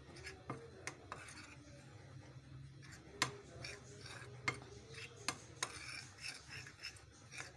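Metal spoon stirring seasoned flour in a bowl: soft scraping with several irregular light clinks of the spoon against the bowl.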